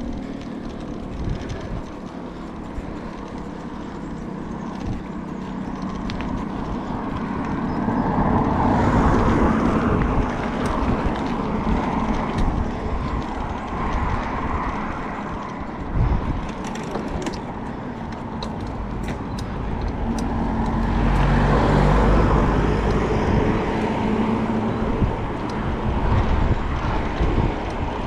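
Wind rushing over the microphone during a bicycle ride, with motor traffic passing. The noise swells about a third of the way in and again past two-thirds, the second swell with a deep rumble.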